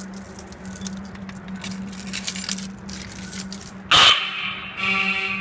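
Light rattling and clicking over a steady low hum. About four seconds in, an explosion-proof Federal Signal fire alarm horn goes off with a loud, nearly one-second blast, and a fainter horn tone follows near the end: the start of the alarm's sounding pattern during a fire alarm system test.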